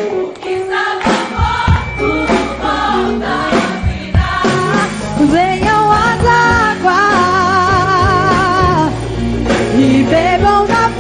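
Live gospel worship music: a band with drums backing voices, with a long note held with vibrato in the middle.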